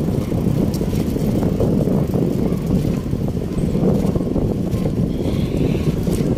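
Steady low rumble of wind buffeting the microphone, mixed with tyre and frame noise from a bicycle rolling over a concrete bike path.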